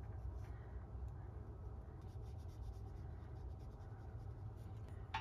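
Small paintbrush scratching lightly across watercolour paper in many short strokes, laying in fur detail, over a low steady hum. A single sharp tick near the end.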